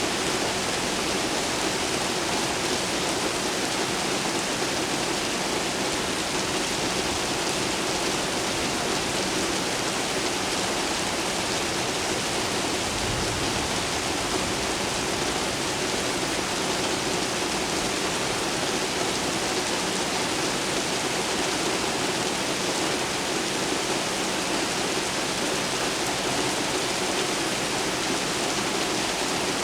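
Steady rain pouring during a thunderstorm: a dense, even hiss that holds constant in level throughout.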